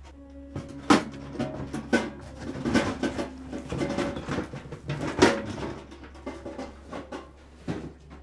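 Lunchboxes knocking and clattering as they are packed into a cardboard box, with cardboard rustling as the flaps are folded and the box is handled, including several sharp thuds. Soft music plays underneath.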